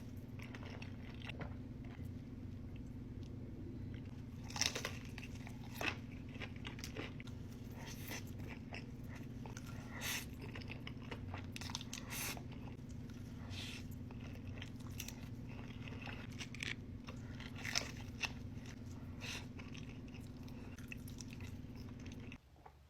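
A person chewing and biting fast food close to the microphone, with scattered crunches over a steady low hum. The hum cuts off shortly before the end.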